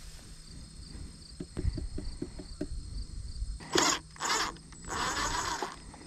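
DeWalt cordless driver running in three short bursts, the last one longer, as it backs the screw out of a wooden nest box's roof. Crickets and other insects buzz steadily underneath, and a few soft knocks come from handling just before.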